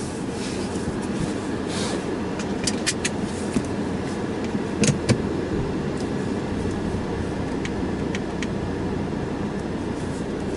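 Ford Mustang EcoBoost's 2.3-litre turbocharged four-cylinder engine idling steadily, heard from inside the cabin, with a few sharp clicks scattered through it.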